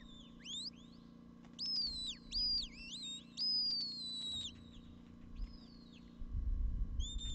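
Handler's shepherd's whistle sounding a run of sheepdog commands. There are several short whistled notes that slide up or fall away, the longest lasting about a second, then a low rumble near the end.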